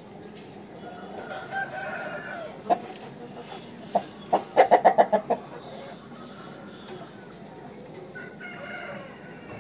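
Aseel roosters: a drawn-out crow in the first seconds, then a quick run of about seven loud clucks near the middle, and a fainter call near the end.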